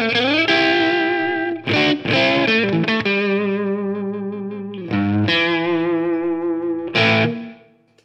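Electric guitar, a 1992 PRS CE24 on its Gibson '57 Classic neck humbucker wired in series, playing a blues phrase with a deep, lightly overdriven tone. Quick picked notes lead into two long held chords with a wavering pitch, and the last chord dies away near the end.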